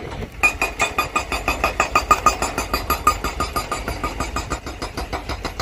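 An engine running steadily with a fast, even pulsing: construction machinery working at a stone-laying site.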